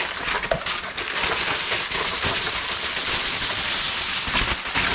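Heavy-duty aluminum foil crinkling and crackling steadily as a sheet is pulled off the roll and torn off against the box's serrated edge.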